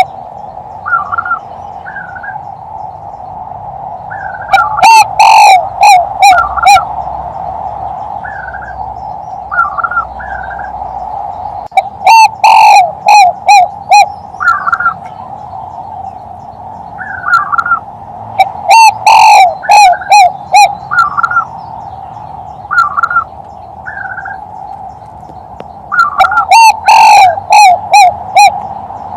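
Male spotted dove (tekukur) giving its three-note 'kuk-3' coo, a lure call for dove hunting. Four loud, distorted phrases of several notes each, repeated about every seven seconds, with short faint chirps and a steady drone between them.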